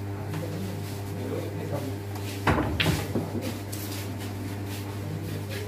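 A steady low electrical hum, with faint voices nearby. About two and a half seconds in comes a sudden short clatter mixed with voices.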